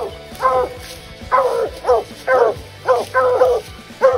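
Hound barking at the base of a tree, a steady run of short barks about two a second, each dropping in pitch: barking treed, the sign that the dog has a raccoon up the tree.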